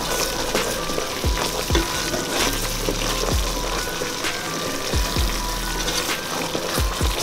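Curry paste with chicken sizzling in an aluminium pot while a wooden spatula stirs it, scraping and knocking against the pot wall at irregular moments. Music plays underneath.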